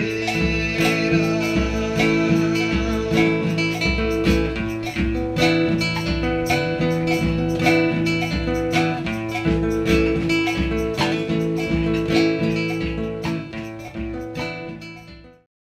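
Instrumental close of a Brazilian popular music (MPB) song: strummed acoustic guitar with drums and cymbal keeping a steady beat, fading out near the end.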